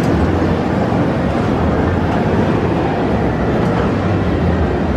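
Kiddie amusement train ride running on its track: a loud, steady rumble with a noisy haze over it.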